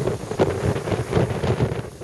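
Typhoon wind gusting hard and buffeting the microphone, a rough, uneven rumbling rush that surges again and again, easing slightly near the end.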